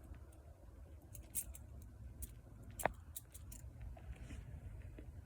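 Faint light metallic clicks and clacks of a blunt metal fake butterfly knife being handled and flipped, scattered irregular ticks with one louder clack about three seconds in.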